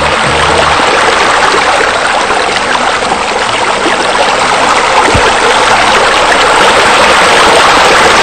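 Steady rush of splashing, falling water from a spa spilling over into a swimming pool. Low background music fades out in the first second.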